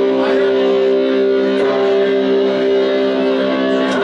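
Live band music: a chord held steady with sustained notes, moving to a new chord near the end.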